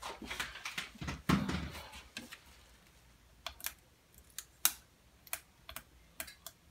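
Hands working over a painted wooden toilet seat lid on a plastic drop cloth: rustling and a quick run of light taps in the first couple of seconds, then scattered sharp clicks and taps.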